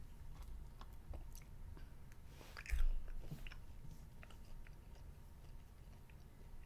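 A child chewing a piece of Easter candy, with small clicks from the mouth and one louder bite nearly three seconds in.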